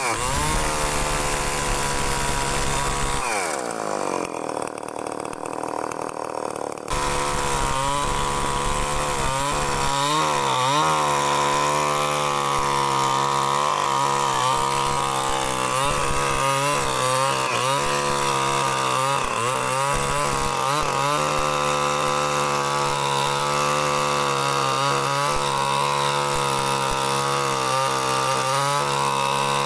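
Two-stroke chainsaw engine fitted with a CDI ignition, running hard for a long stretch with its pitch dipping and rising again and again. About three seconds in, the engine note falls away for a few seconds, then comes back suddenly at full speed.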